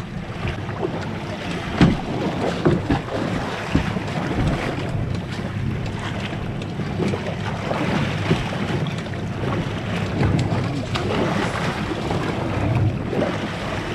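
Wind buffeting the microphone over choppy sea water lapping against a small boat's hull, with a few sharp knocks about two seconds in.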